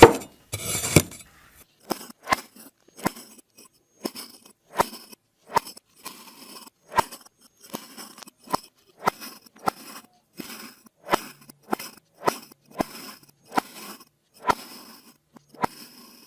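Blade slicing through crunchy kinetic sand, each cut a short, crisp crunch. After a couple of louder, longer crunches at the start, the cuts come steadily at about two a second.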